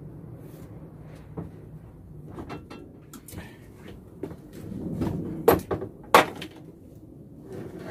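Knocks and clunks of a large, unpowered router being taken out of a wooden cupboard and handled, ending in two sharp knocks about two thirds of the way in as it is set down on the wooden bench.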